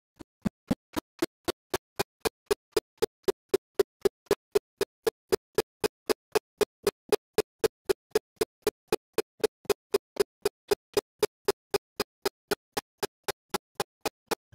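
Steady, evenly spaced ticking, about four sharp clicks a second, each with a short low tone; it starts faint and grows loud within the first second.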